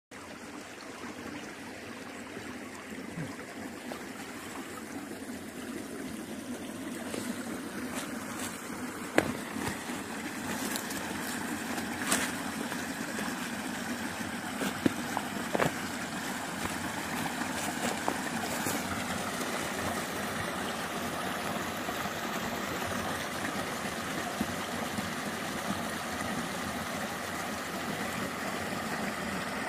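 Small, partly frozen creek running and trickling over an ice-crusted cascade: a steady rush of water, with a few sharp clicks in the middle.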